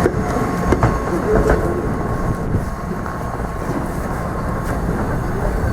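Train moving on the rails with a steady low rumble and a few sharp clicks from the wheels, about a second and a second and a half in.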